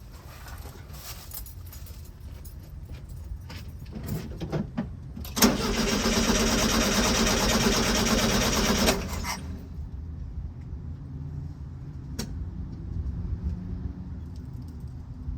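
Keys jangling and clicking, then the 1973 VW Super Beetle's starter cranking the air-cooled flat-four for about three and a half seconds and stopping without the engine firing: it is getting no spark.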